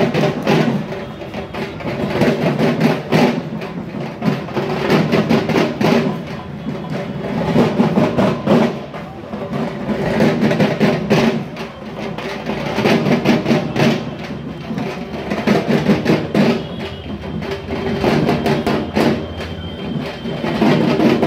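Hand drums played in a street procession, a dense rhythmic beat that swells and eases every couple of seconds.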